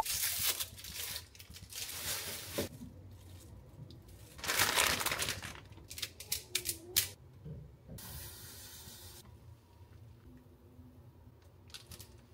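Instant ramen packaging crinkling and tearing in several bursts, the loudest about five seconds in, followed by a few sharp clicks.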